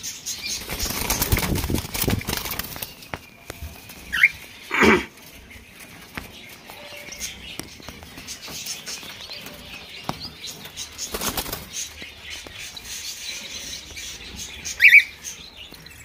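Caged cockatiels fluttering and flapping their wings, most in the first two seconds and again about eleven seconds in, with a few short chirping calls; the loudest are a brief call about four seconds in, a second call just after, and another near the end.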